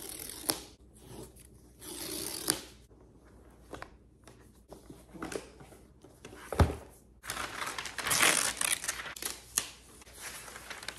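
Paper tear strips ripped off a cardboard laptop box, then the box and its paper packaging rustling as it is slid apart and the laptop is unwrapped. A single dull thump comes a little past halfway, followed by the longest stretch of paper rustling.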